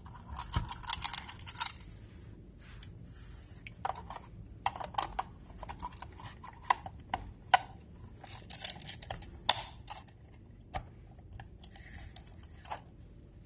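Acrylic lantern panels being handled and slotted together: irregular clicks, taps and short scrapes of hard plastic against plastic.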